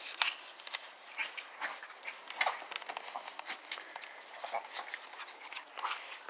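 Chihuahuas panting and snuffling close by, with many irregular short crunches and scuffs of small paws in snow.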